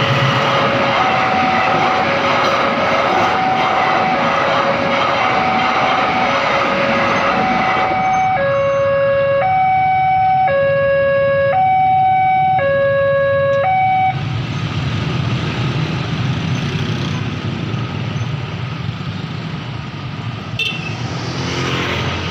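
Railway level-crossing warning siren sounding a loud two-tone hi-lo wail, switching pitch about once a second, at first over the rumbling noise of a train passing. About 14 seconds in the siren cuts off and a broad rumble carries on, slowly fading.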